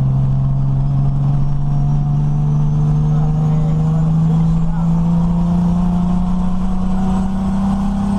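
Turbocharged 1JZ straight-six engine of a 1936 Morris 8 heard from inside the cabin while driving, its note climbing slowly and steadily under light acceleration.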